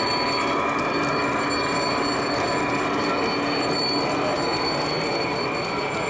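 LGB G-scale model trains running along the layout's track: a steady rolling rumble of wheels on rails, with several thin high whining tones held throughout.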